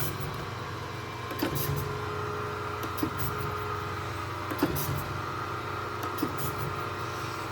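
Kent KGS-63AHD hydraulic surface grinder running with a steady hum, and a short knock about every second and a half as its hydraulic table reverses at each end of its stroke.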